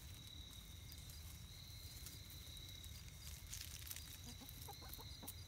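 Buff Orpington hens giving a few soft, short clucks a little over halfway through, faint over a steady high-pitched whine in the background.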